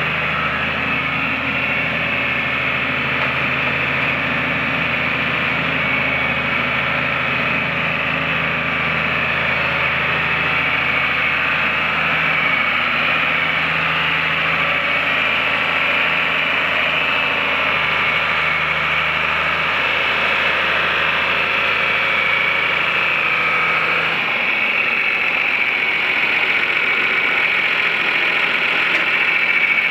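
John Deere 2840 tractor's six-cylinder diesel engine running steadily as the loader tractor is driven slowly. Near the end the deep low note drops away and the engine carries on more thinly.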